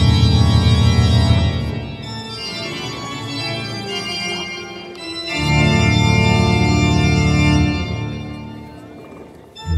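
Music of long sustained organ chords. A loud low chord fades out about two seconds in, a quieter passage follows, then a second loud chord swells up and fades again near the end.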